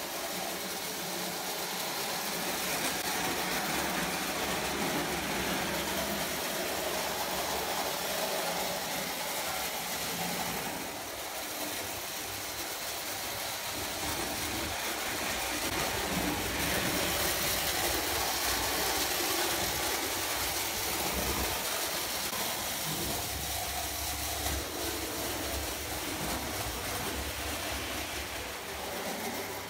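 Lionel O gauge toy trains running on three-rail tinplate track: a steady mix of wheel clatter and motor noise.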